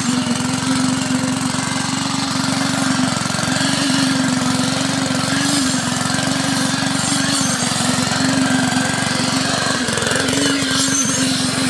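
Small engine of a concrete needle vibrator running steadily at working speed while its flexible-shaft poker is worked into wet concrete.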